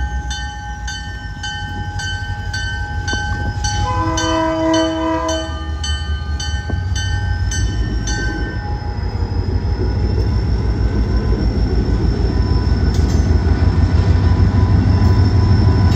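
EMD GP40-2LW diesel locomotive passing slowly, its engine a low rumble that grows louder as it draws alongside. A warning bell rings about twice a second through the first half, and about four seconds in the horn sounds one blast of about two seconds.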